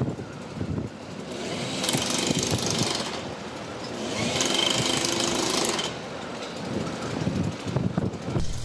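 Power tool from railway track maintenance work, running in two bursts of a second or two each with a harsh, hissing noise.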